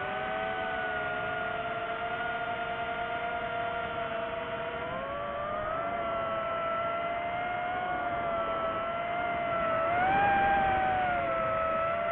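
DJI FPV drone's motors and propellers whining in flight, several close tones sliding up and down with the throttle, climbing higher and louder about ten seconds in.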